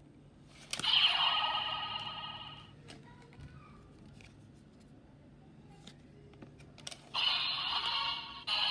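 DX Chemy Riser toy giving short electronic sound effects through its small speaker, one about a second in and another near the end. Sharp plastic clicks come from its card slot and moving parts as a card is taken out and another put in.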